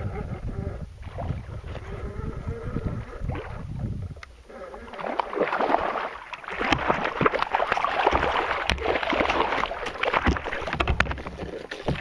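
Water splashing and sloshing around a kayak, with wind buffeting the microphone; the splashing grows much louder and busier about five seconds in.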